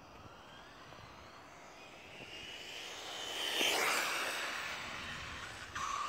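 Electric motor and drivetrain of an HSP XSTR Pro RC car running on a 3S LiPo, whining at high speed as it races toward and past. The whine climbs in pitch and loudness to its loudest about four seconds in, then drops as the car goes away. A short buzz sounds near the end.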